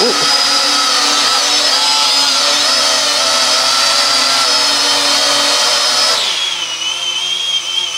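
Small quadcopter drone's motors and propellers whining loudly at a steady high pitch. About six seconds in, the pitch drops to a lower steady whine as the motors slow.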